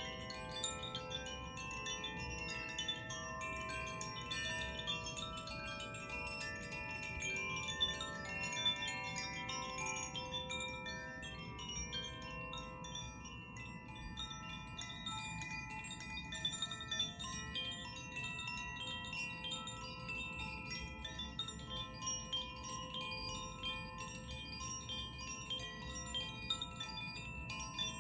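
Several hand-played tuned chimes ringing together: a continuous, dense stream of small strikes and many overlapping, long-ringing bell-like tones, with a few louder strikes standing out.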